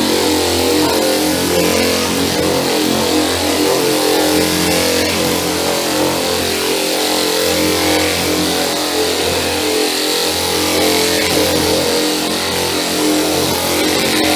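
Chicago Pneumatic twin-piston air flat sander running steadily as its 120-grit paper works over body filler: a constant hum with a hiss over it.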